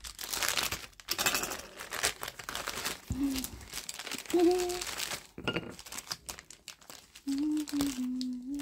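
Clear plastic bag crinkling and rustling in irregular bursts as hands handle it and work small figure parts out of it.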